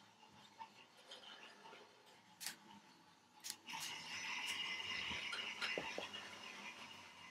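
Battery-powered Imaginarium Power Rails toy trains running on plastic track: a small electric motor whirs, with a few sharp clicks from the wheels and couplings. About four seconds in the whir grows louder and steadier.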